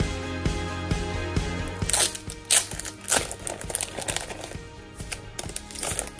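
Background music with a steady beat, joined from about two seconds in by the crinkling of a clear plastic sleeve being handled, in several sharp crackles.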